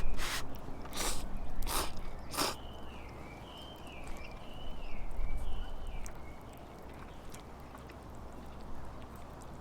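A bird calls outdoors in a wavering, up-and-down whistle that repeats for about the first six seconds. Four short, sharp noises come in the first two and a half seconds, about two-thirds of a second apart; after that only faint outdoor background remains.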